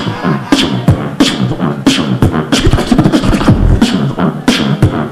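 Solo beatboxer performing into a handheld microphone: sharp vocal snares on a steady beat, about one every two-thirds of a second, over a pitched, humming bass line. A deep low bass drop comes about three and a half seconds in.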